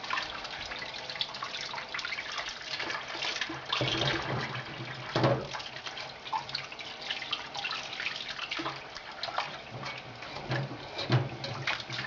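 Kitchen tap running steadily into a bowl of water in a stainless steel sink as pieces of pork are rinsed by hand, with splashing and a few louder knocks.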